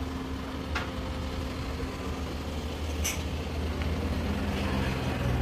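A motor vehicle's engine running steadily at idle, a low even hum that grows a little louder near the end, with two short clicks.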